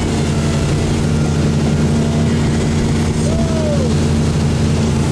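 Tow boat's engine running steadily at towing speed, with water and wind noise over it. A short tone rises and falls once, about three seconds in.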